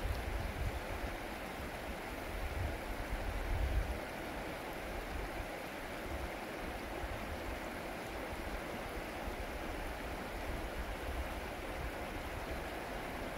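Fast-flowing river rushing steadily, with a low rumble swelling and fading underneath, strongest in the first few seconds.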